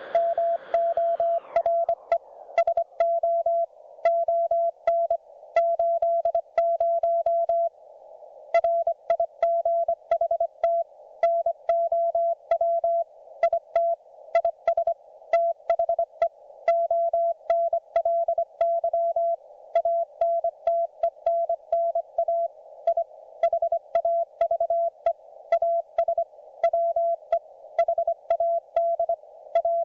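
Morse code from a YouKits HB-1B QRP transceiver on 40 metres: a single steady mid-pitched tone keyed on and off in dots and dashes, with a slight click at each keying edge. A hiss at the start fades out within the first second or two, and from about 8 seconds in a narrow band of receiver hiss sits under the tone.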